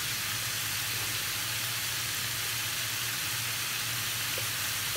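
Beef shank chunks and spice paste sizzling in a frying pan, an even, unbroken hiss with a low steady hum underneath; the meat is still partly raw and red.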